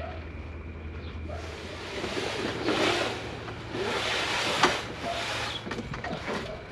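A heavy cardboard-boxed RV rooftop air conditioner scraping and rubbing as it is hauled up a ladder by rope, in several rasping surges with a sharp knock about four and a half seconds in.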